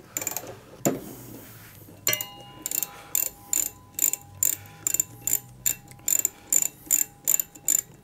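Ratchet wrench clicking in a steady run, about three clicks a second, as the bolt holding a washing machine's drum pulley is unscrewed. A single knock comes just under a second in.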